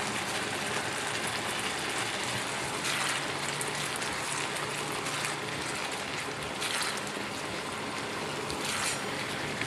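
Tofu, mixed vegetables and tomato sauce sizzling steadily in a frying pan, with a few brief swishes as a silicone spatula stirs the mixture.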